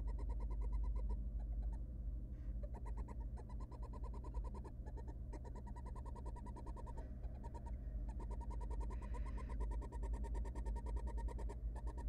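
Barn owls in a nest box making twittering, chittering calls while the female feeds her nestlings. The calls come as rapid trains of ticks lasting a second or two, repeated with short gaps. A steady low hum runs underneath.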